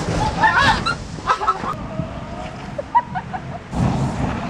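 A person giving short high-pitched squeals and cries while tumbling inside a rolling zorb ball, over a steady rumble of the ball rolling.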